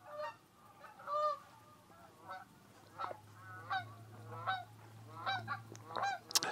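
A large flock of geese honking, many short calls overlapping continuously. A sharp click near the end.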